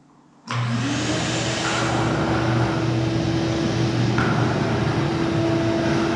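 Craftsman 12-gallon, 6 hp wet/dry shop vacuum switched on about half a second in, its whine rising as the motor comes up to speed, then running steadily.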